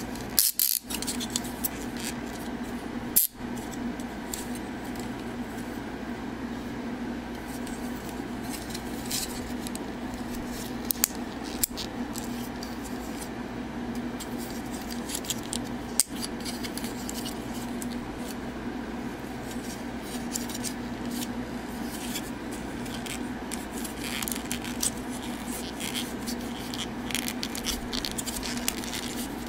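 Hard plastic parts of a 52Toys BeastBox transforming figure clicking, ticking and scraping as it is folded and handled. The clicks are scattered and irregular, with a few sharper snaps, over a steady low hum.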